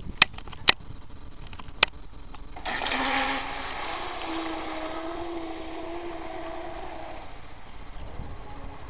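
A few sharp clicks, then about two and a half seconds in a 12-cell electric twin-motor RC hydroplane takes off: a sudden rush of spray with a steady two-tone electric motor whine that fades after about seven seconds as the boat runs away across the water.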